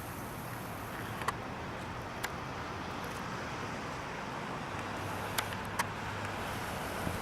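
Steady distant road-traffic noise, with a few short sharp clicks scattered through it.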